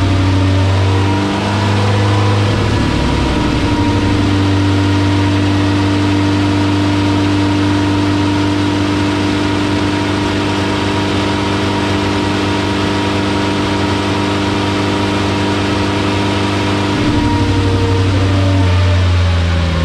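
Peugeot 205's 1.4-litre 16-valve TU3JP4 rally engine running under load on a rolling road, driving the front wheels on the rollers and held at steady revs for long stretches. The note shifts about two seconds in, gets a little louder about seventeen seconds in, and the revs start to drop right at the end.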